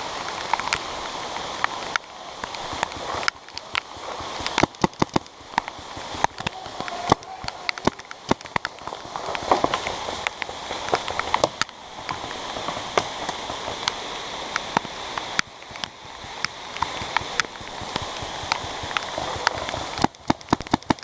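Steady rain hiss and patter, broken by strings of sharp pops from paintball markers firing, the quickest run coming near the end.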